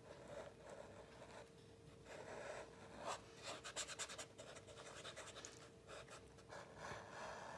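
Faint scratchy rubbing on drawing paper as charcoal is blended and pressed into the surface in small circular strokes. A flurry of quick, harder strokes comes a few seconds in.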